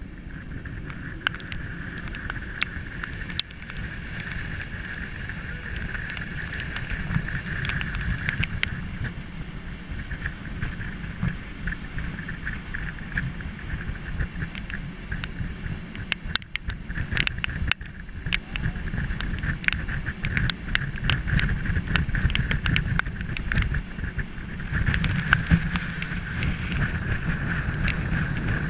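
Wind buffeting the microphone and water rushing past on the deck of a fast naval patrol boat running at speed. A steady high-pitched whine runs through it, with scattered sharp ticks, and it grows louder near the end.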